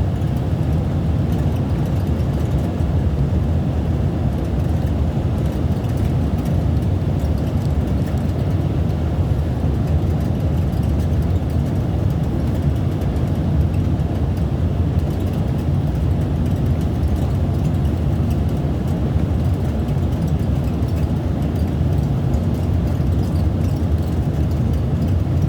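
Twin-propeller airliner heard from inside the cabin: a steady, deep rumble of the propellers and airflow that does not change throughout.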